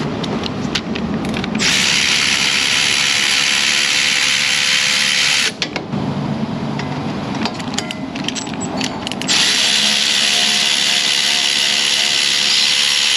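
Power tool running in two long, steady, hissing bursts of about four seconds each; the second starts about nine seconds in. Short metallic clicks of tools being handled come between the bursts.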